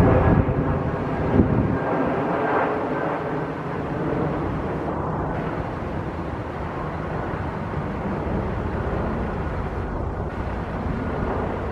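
Commuter train passing close by: loud at first with a steady droning tone and a knock about a second in, then easing off into a steady rumble as it moves away.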